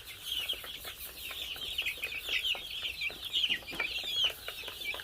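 A flock of month-old chicks peeping, many short high chirps overlapping without a break, with scattered light ticks among them.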